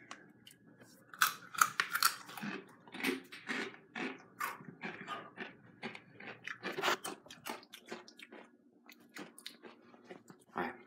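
Takis rolled tortilla chips being chewed, an irregular run of crunches that are dense at first and thin out over the last few seconds. Near the end there is one louder knock as the phone is handled.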